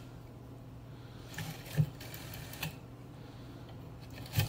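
Rotary dial of a Northern Electric 500 telephone being turned and let spin back. A few separate mechanical clicks, the loudest about two seconds in, sound over a faint steady low hum.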